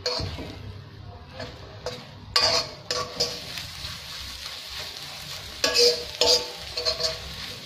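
Beaten eggs sizzling in hot oil in a steel wok while a metal spatula stirs and breaks them into crumbles. The spatula scrapes and clinks against the pan several times, loudest about two and a half seconds in and again around six seconds.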